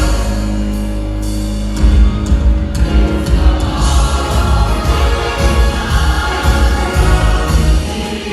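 Choral music: a choir singing over instrumental backing, with held chords at first and a heavy, regular low beat coming in about two seconds in.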